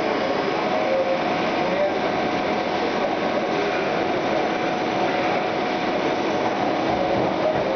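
Biglia B111/S3 sliding-head CNC lathe running under coolant, with coolant spraying over the spinning workpiece. It makes a steady, even mix of machine noise and spray with a faint constant whine.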